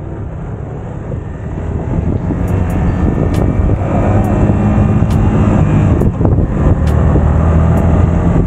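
Yamaha XSR 155's single-cylinder engine running as the motorcycle rides along, growing louder about two seconds in, with wind rushing over the microphone.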